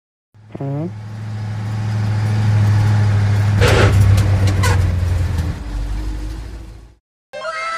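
Truck engine sound effect: a low, steady engine hum that starts shortly after the beginning, swells to its loudest in the middle, and cuts off about seven seconds in. Two short hisses break in around the middle.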